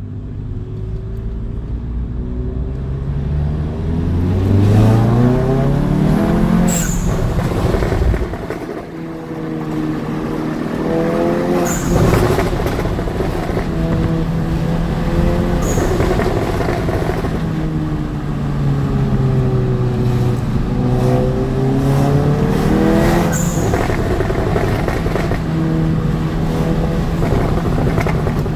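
Stage 2 tuned Mk7 Golf GTI's 2.0-litre turbocharged four-cylinder exhaust, with an aftermarket downpipe and resonator delete. The revs climb hard over the first several seconds, then fall away. After that the engine runs steadier with the revs rising and falling, broken by sharp exhaust pops about four times.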